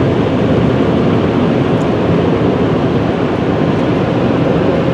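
Automatic car wash dryer blowers running, a steady loud rush of air blowing water off the car, heard from inside the car.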